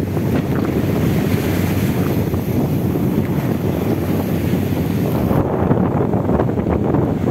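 Strong wind buffeting the microphone over the rush of waves and water around a small boat under way in rough sea. A faint high hiss drops away about five seconds in.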